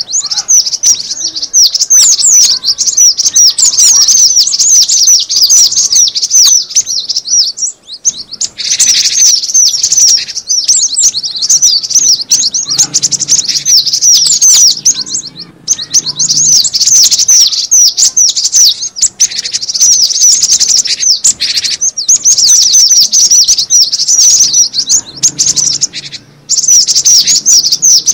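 Cinereous tit (gelatik batu) calling: rapid, dense chattering chirps in long bouts, broken by short pauses about 8, 15 and 26 seconds in.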